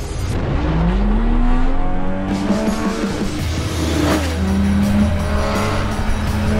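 Race car engine accelerating with rising pitch, then a car passing by with a falling sweep about four seconds in, over background music.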